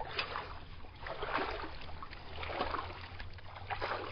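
Shallow creek water splashing and sloshing in irregular swishes, about one a second, stirred by movement through the water.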